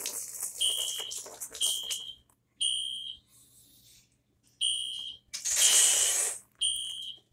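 Building fire alarm horn sounding in the temporal-three evacuation pattern: three short high beeps about a second apart, a pause, then three more. A loud burst of noise comes about five and a half seconds in.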